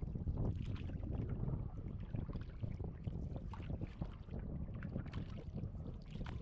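Water lapping and splashing against a small boat, with wind rumbling on the microphone.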